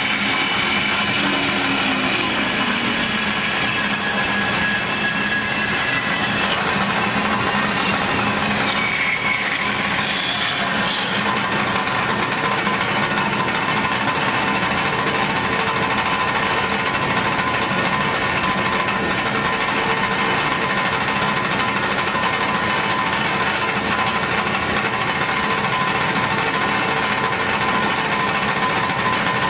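Hyd-Mech S-20A horizontal band saw running, its blade cutting down through a bundle of metal tubes: a steady mechanical noise with several whining tones, some of them gliding in pitch during the first ten seconds.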